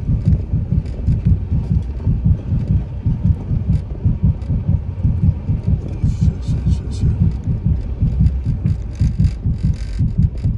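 Dense, uneven low thumping and rumbling, several thumps a second, from a Toyota Tacoma pickup working its way up an icy, snow-covered hill.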